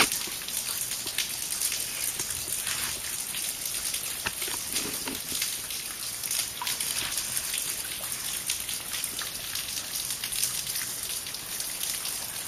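Water dripping and trickling inside a waterlogged tunnel: a steady hiss scattered with many small patters.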